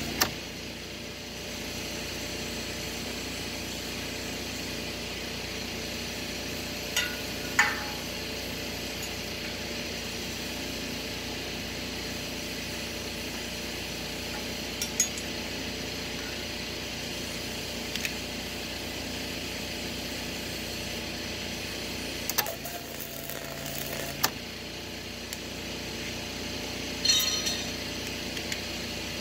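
A flux-core welding arc buzzes and cuts off just after the start. Then scattered metallic clinks and scrapes of a hand tool on the steel weld follow over a steady hum, with a ringing clink near the end.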